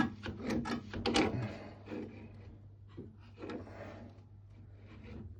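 Short clicks and scrapes of metal grips tightening a boiler's automatic air vent, thickest in the first second and a half, then a few quieter knocks, over a steady low hum.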